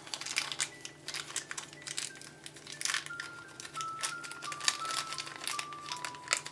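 Plastic toy packaging crinkling and rustling in the hands, irregular and crackly, as small figures are unwrapped. Soft background music of slow single held notes runs beneath it.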